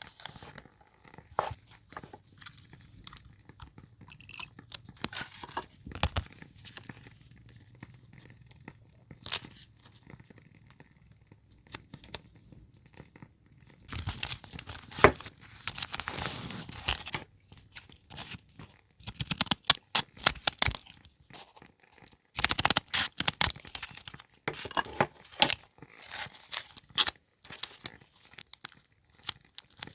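Paper being handled: crinkling and tearing, with scattered taps and clicks. The rustling grows denser about halfway through and again later on.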